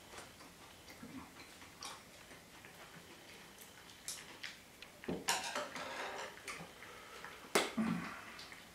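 Cat eating from a stainless steel bowl, with small ticking clicks of licking and chewing. Two louder clinks of tableware, one about five seconds in and one near the end.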